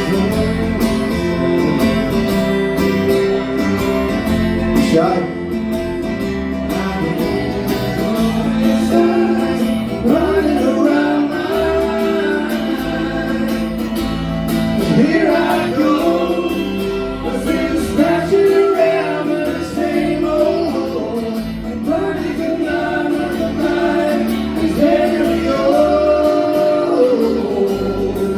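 A live band playing a song, with vocals sung over electric bass and guitars.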